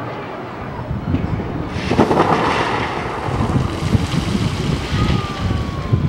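Wind buffeting the microphone over a hissing rush of water spray, which starts suddenly about two seconds in and fades near the end.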